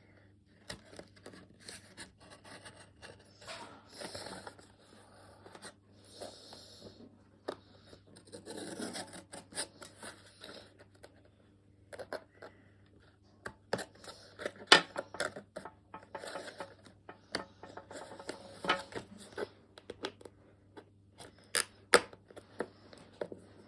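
Toy packaging being cut and pulled open by hand: scissor snips, scraping and rustling of cardboard and plastic, with scattered sharp clicks and taps.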